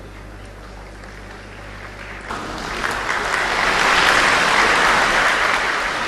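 Audience applauding in a lecture hall, light at first and then swelling sharply about two seconds in, loudest near the end.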